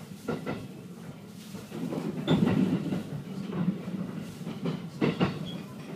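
Inside a JR West Special Rapid electric train rolling over the tracks: a steady low running rumble with a few sharp wheel clacks, mostly in pairs, as the bogies cross rail joints and points on the approach into the station.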